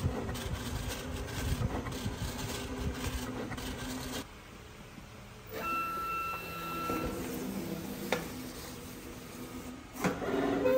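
SAGA A3 Pro decal cutting plotter running as its cutter head tracks over a sticker sheet: a steady mechanical whir and hum. After about four seconds it drops suddenly quieter, and a brief steady whine or tone sounds for about a second and a half. A few louder knocks follow near the end.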